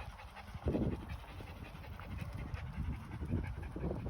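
Bichon frisé dog panting rapidly in a quick, even rhythm.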